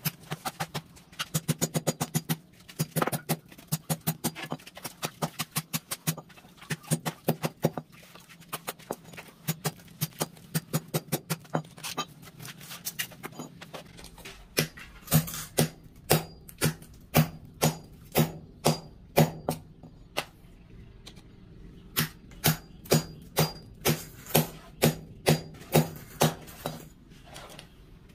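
Tiling work: a steel trowel tapping and scraping on wet mortar and ceramic floor tiles, several quick knocks a second. From about halfway, louder knocks come at an even pace, about one and a half a second.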